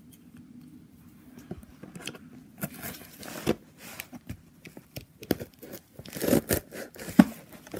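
Cardboard shipping box being opened by hand: packing tape tearing and the flaps rustling and scraping in scattered short noises, starting a couple of seconds in and loudest near the end.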